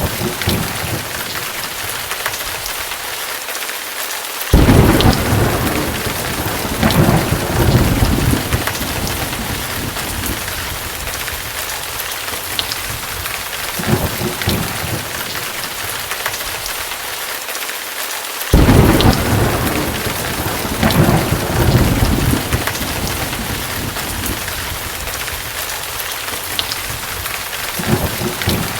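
Steady rain with thunder: a sudden thunderclap about four seconds in and another just past midway, each rolling on in swells for several seconds, with weaker rumbles between them and near the end.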